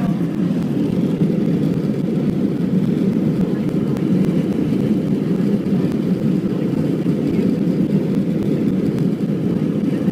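Airliner cabin noise: a steady, low rumble of engines and airflow heard from inside the passenger cabin.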